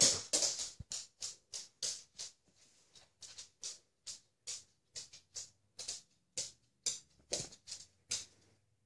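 Border collie panting close to the microphone, a regular run of short breaths about three a second.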